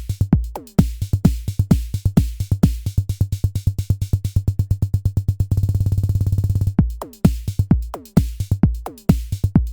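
Arturia DrumBrute Impact analog drum machine playing a beat, with its looper repeating ever shorter slices of the pattern so the hits speed up into a fast, even stutter roll about halfway through. About seven seconds in it snaps back to the normal beat.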